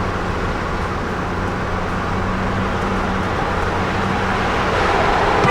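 Vehicle driving along a road: steady tyre and road noise with a low engine hum, growing a little louder near the end.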